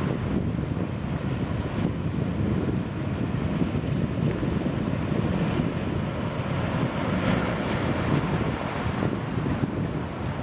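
Wind rumbling on the microphone over the steady wash of ocean surf breaking on a lava-rock shore.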